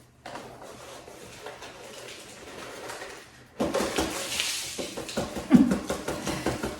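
Scraping, rustling and small clicks of hands working a plant pot and potting soil during repotting, faint at first and much louder from about three and a half seconds in.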